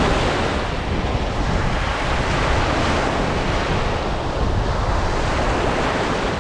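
Small lake waves breaking and washing up on a sandy shore, a steady rushing surf, with wind buffeting the microphone as a low rumble.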